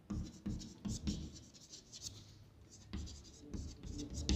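Chalk writing on a chalkboard: a run of short, irregular taps and scratches as a word is written out.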